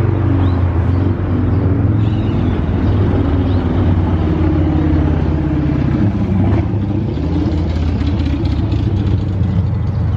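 Steady road traffic rumbling close by, with one vehicle's engine note falling and then rising again about six to seven seconds in.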